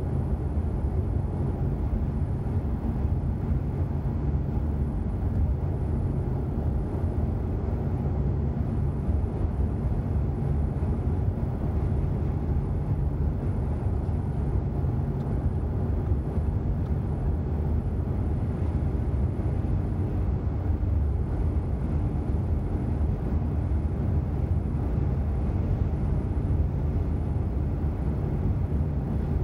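Steady low road and engine rumble inside a car's cabin while cruising on a dual carriageway, unchanging throughout.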